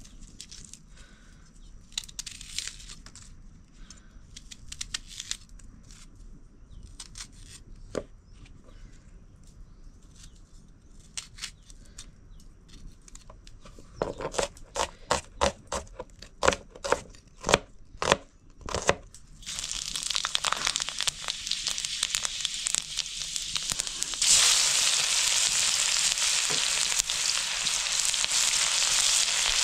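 Light clicks and scrapes, then about a dozen sharp knocks over some five seconds, then food sizzling in hot oil in a pan, starting about two-thirds of the way in and growing louder near the end.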